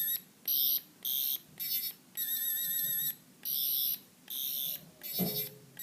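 Electronic sound effect from a 10th Doctor sonic screwdriver toy: a high-pitched warbling buzz in a string of short bursts of about half a second each, with gaps between them, as its button is pressed to cycle through its sounds. A brief low sound comes near the end.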